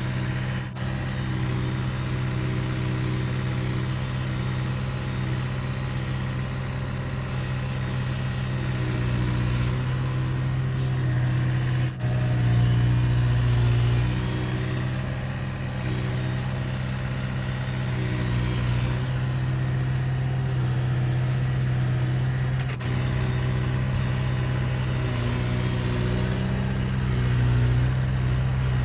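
Heavy diesel engine of construction machinery running steadily at an even pitch, with short breaks about a second in, midway and near the end.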